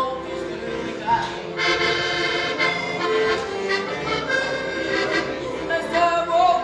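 Two diatonic button accordions playing a tune together in sustained chords: the instrumental break between the sung verses of a Portuguese desgarrada.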